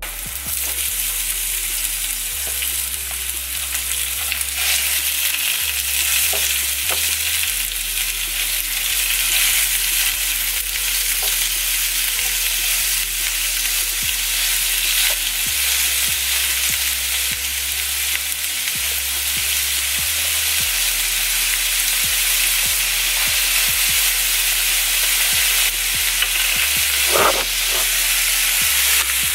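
Onions and hamburger meat sizzling steadily as they fry in oil in a pan, with scattered clicks of a utensil stirring them and one louder knock near the end.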